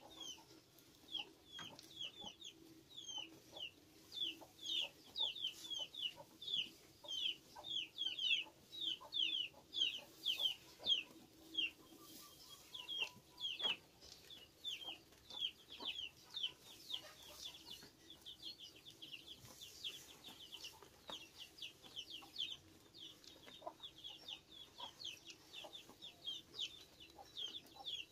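Chickens peeping: a rapid string of short, high, downward-sweeping chirps, several a second, with a faint steady hum underneath.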